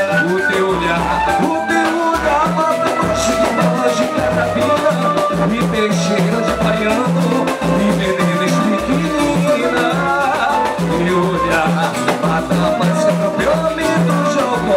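Samba band playing live: a steady percussion groove with a melody over it.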